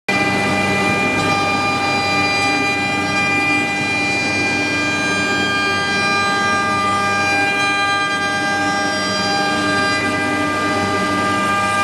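Eight-head CNC wood carving router with 2.2 kW spindles carving wood: a steady high whine with evenly spaced overtones over the constant hiss of the cutters.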